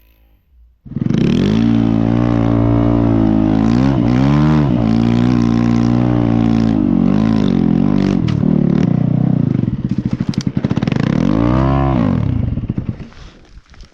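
Snow bike's motorcycle engine coming in hard on the throttle about a second in and held at high revs, with a few dips and rises in pitch, one last rev near the end, then dropping away.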